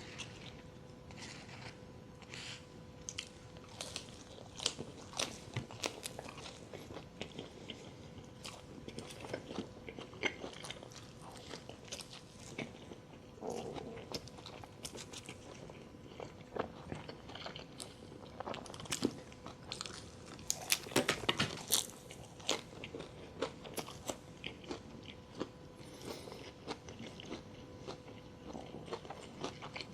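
A person biting and chewing crunchy food close to the microphone: a steady run of crisp crunches and mouth sounds, busiest about two-thirds of the way through.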